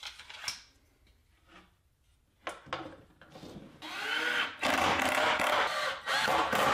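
A few knocks and clicks of tools against plywood, then from about four seconds in a cordless drill running in spurts, its pitch rising and falling as it drives screws into the plywood cabinet.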